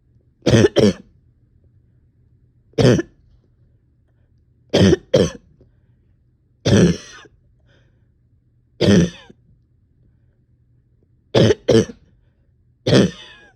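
A person coughing over and over: short, sharp coughs, single or in pairs, coming roughly every two seconds, about ten in all.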